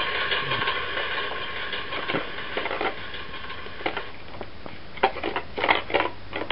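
Battery-operated toy ball train running, with a steady whine through the first few seconds, then a run of sharp plastic clicks and clatters in the second half.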